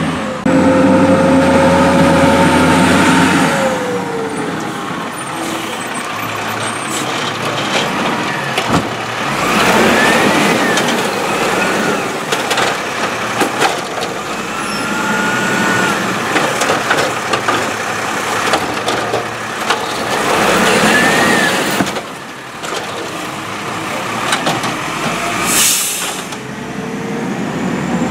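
Peterbilt 320 garbage truck with an Amrep automated side-loader body working curbside carts. The diesel engine runs steadily, then rises and falls in pitch several times as the hydraulic arm lifts and dumps, with clanks from the arm and carts. A short sharp air-brake hiss comes near the end.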